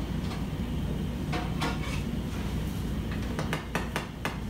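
Kitchen scissors snipping sheets of leaf gelatin: a couple of sharp clicks about a second and a half in, then a quicker run of snips near the end, over a steady low hum.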